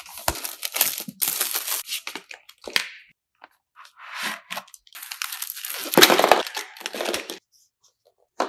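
Plastic shrink-wrap being cut with scissors and torn off a canvas, in loud bursts of tearing and crinkling. More crinkling and rustling of packaging follows from about four seconds in, loudest around six seconds.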